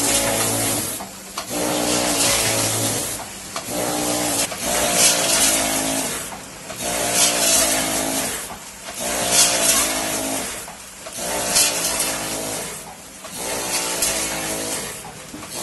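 Pre-made pouch (doypack) packing machine for potato chips running through its cycle about once every two seconds: a pitched motor hum alternates with bursts of hiss, with clicks from the mechanism.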